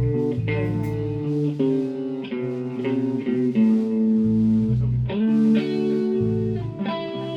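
Guitar and bass guitar playing the chorus chords of a song, the bass moving to a new low note every second or so under sustained guitar chords.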